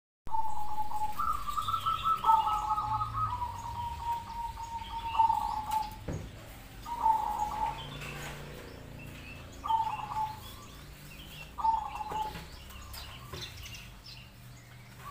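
Zebra doves (perkutut) cooing: clear, ringing phrases of held notes, repeated every couple of seconds. In the first few seconds two voices at different pitches sing over each other.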